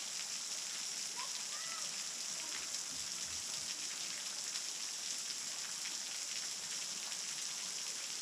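Low-flow waterfall: a thin fall of water splashing onto rock, heard as a steady high hiss with fine pattering, much like rain.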